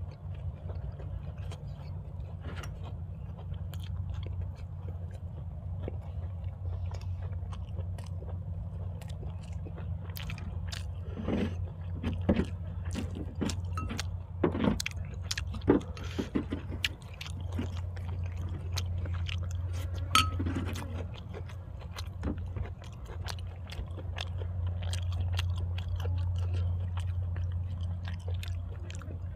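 Close-miked chewing and crunching of food, raw vegetables among it, with sharp clicks and mouth smacks, densest between about 10 and 21 seconds in, over a steady low hum.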